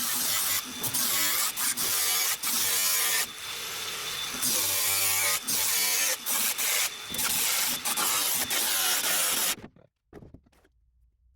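Cardboard being worked and pressed into a car's rear wheel tub, making loud scraping and rustling with short breaks that stops about ten seconds in.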